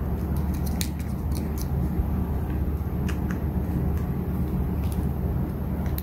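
A steady low drone, with scattered light clicks and taps as small plastic parts of an LED light bracket are handled.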